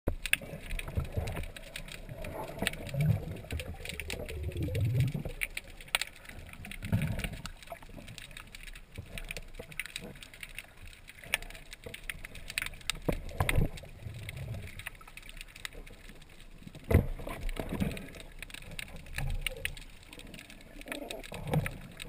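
Underwater sound picked up by a submerged camera in the sea among rocks: a water surge with many scattered clicks and crackles and low thumps every few seconds.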